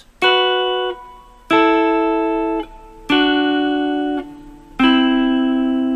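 Guitar double stops on the G and B strings: four two-note chords picked one after another, each about a second and a half apart and each a step lower than the last. The last one is left ringing.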